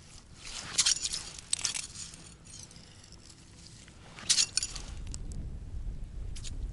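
Metal ice scoop scraping and clinking ice chips and slush out of a freshly drilled hole in the ice, in a cluster of short strokes about a second in and again just past four seconds.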